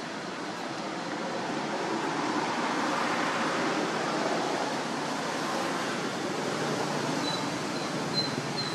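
Steady rushing outdoor background noise with no distinct events, swelling slightly a couple of seconds in, with a faint thin high tone near the end.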